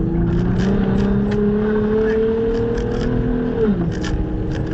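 Car engine pulling under acceleration, heard from inside the cabin, its pitch climbing slowly and then dropping sharply about three and a half seconds in as the driver lifts off. Underneath, the tyres rumble on loose gravel and small stones tick against the car.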